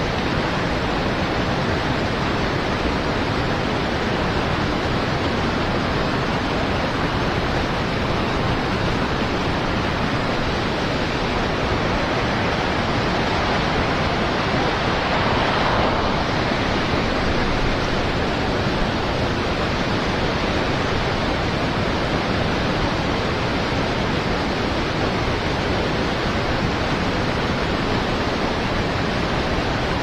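River white water rushing steadily, an even noise that holds at the same level throughout.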